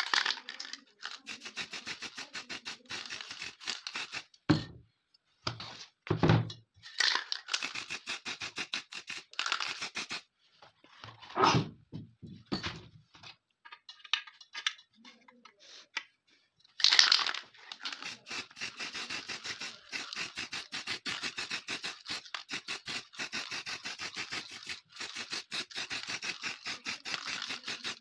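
Fast, steady scraping and rasping of hand tools working a steel AKM magazine body, in runs of quick strokes. A few heavier knocks come in the first half, and there is one loud sharp scrape a little past the middle.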